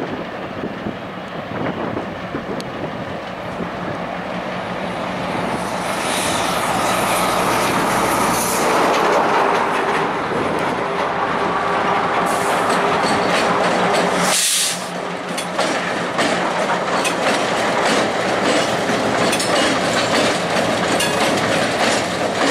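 Diesel locomotives of a freight train rolling slowly past, engines running and wheels on the rails. The sound grows louder about five seconds in as the units draw near.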